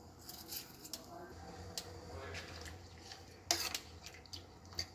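Cut lemongrass pieces dropped and pressed into a small steel pot of hot water, with faint scattered taps and splashes against the pot and a sharper click about three and a half seconds in. A low steady hum runs underneath.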